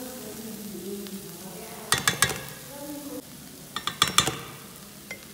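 Metal teaspoon knocking against a stainless steel pan as spices are tipped in: two quick clusters of sharp clinks about two seconds apart. Underneath is a steady sizzle from onions cooking in the pan without oil.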